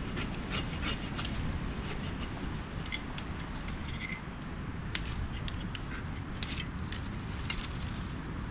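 Wind buffeting the microphone, with scattered sharp snaps and cracks of dry twigs and dead branches being broken for firewood.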